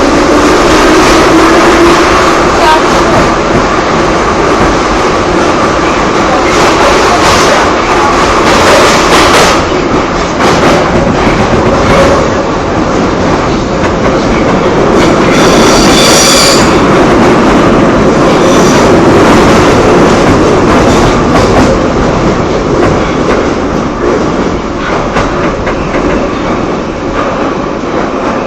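Moscow Metro train running between stations, heard from inside the carriage: a loud, steady rumble and rail clatter. The motor whine rises in pitch at the start as the train gathers speed, and a brief high-pitched wheel squeal comes about halfway through.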